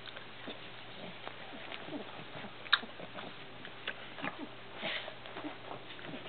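Cavalier King Charles Spaniel puppies chewing and tugging on a rope toy: scattered small snuffles, mouth and fabric sounds, with one sharp click about halfway through.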